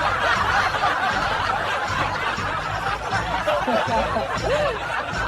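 Continuous laughter right after a punchline.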